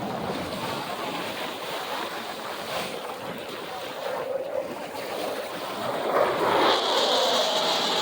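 Fighter jet passing over, its engine noise swelling about six seconds in with a high whine, over wind on the microphone.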